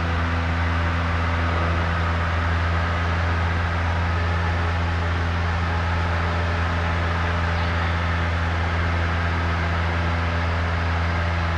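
Single-engine Cessna's piston engine and propeller at full power, heard inside the cabin as a loud, steady drone during takeoff and the initial climb.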